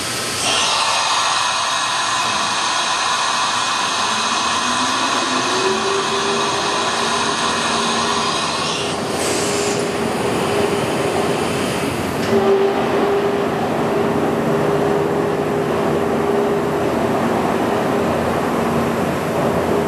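H&H Roberts Topwell TW-50 CNC vertical machining center running a program. A loud hiss sounds for about the first nine seconds and then stops. A steady low whine sets in about six seconds in and carries on over a continuous mechanical hum.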